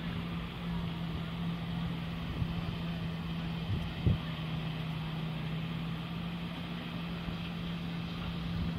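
Motorboat engine running with a steady low drone over a background rush, with one short thump about four seconds in.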